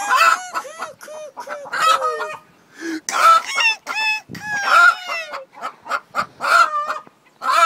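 A hen calling loudly and repeatedly, a rapid string of clucks and squawks, many rising and falling in pitch, with only brief pauses.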